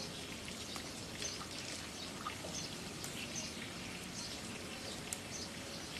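Giant panda chewing bamboo: irregular crunching and rustling of leaves and stems, with a sharp click about five seconds in.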